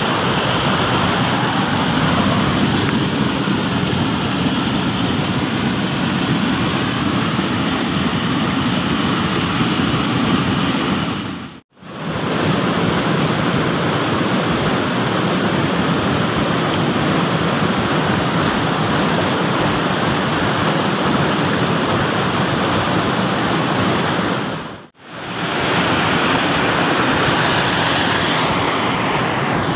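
Steady rush of a shallow, rocky river flowing fast over stones. The sound drops out briefly twice, about 12 seconds in and near 25 seconds.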